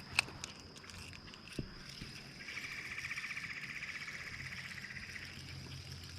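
A frog's pulsed trill, lasting about three seconds and starting a couple of seconds in, over a steady high-pitched tone. A sharp click sounds near the start and another about a second and a half in.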